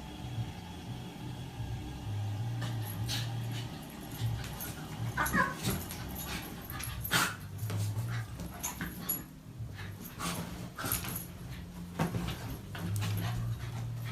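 A dog making small, quiet sounds, with scattered light clicks and a short pitched call about five seconds in.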